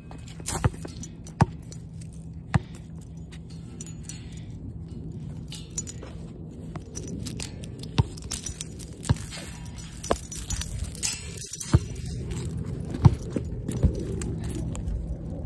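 Metal chain dog leash jangling and clinking in the hand while walking, with scattered sharp clinks over a low rumble.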